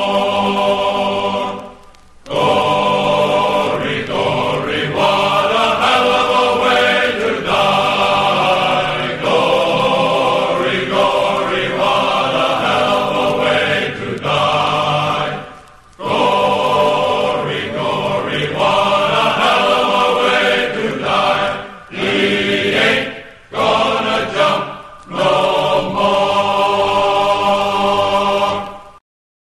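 Choir singing a slow chant-like melody in long held phrases, with brief breaths between them, then cutting off abruptly near the end.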